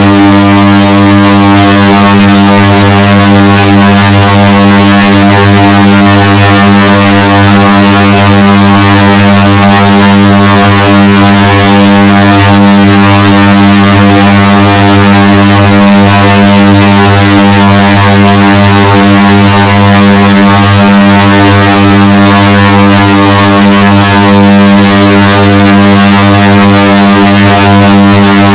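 Microwave oven running: a steady, unbroken hum, bass-boosted to near full loudness.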